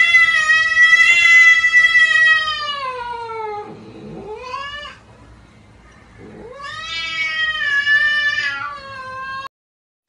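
A cat yowling in long, drawn-out wails. The first runs several seconds and sinks in pitch at its end. A short cry follows, then a second long wail that is cut off suddenly near the end.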